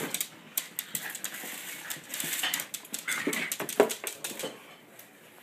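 A small dog playing with an empty cardboard soda carton, the box scraping and knocking on a wooden floor, mixed with the dog's short whimpers.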